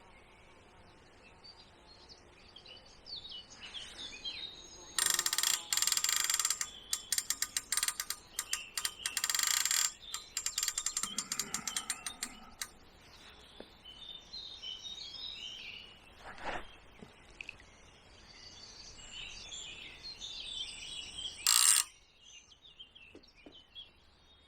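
Rapid ratchet clicking from a centrepin reel's check, in two spells of about two seconds each. Later, small birds singing, and a short loud burst of noise near the end.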